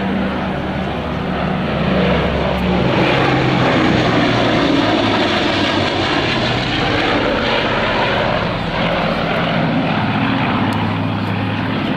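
Lockheed Super Constellation's four Wright R-3350 radial piston engines and propellers droning loudly as the airliner flies by. The engine note drops in pitch a few seconds in.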